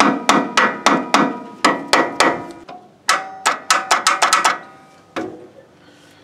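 Hammer striking the starter motor of a Kubota L2350 tractor, repeated sharp metallic hits with a ringing after each. There is an even series of about three a second, then a short pause, a quicker flurry, and one last hit about five seconds in. The starter is being tapped to try to free it on a tractor that won't crank.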